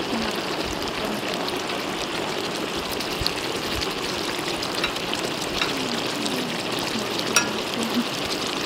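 Chicken and cabbage cooking in broth in a large wok over a fire: a steady bubbling hiss, with a sharp light click about seven seconds in.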